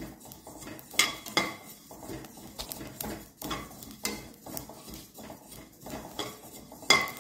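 Steel spatula scraping and clinking against a metal kadai as cumin seeds are stirred while dry-roasting, with sharp ringing clinks about a second in and near the end. Under the scraping the seeds rustle and crackle, the crackle that marks the cumin as roasted.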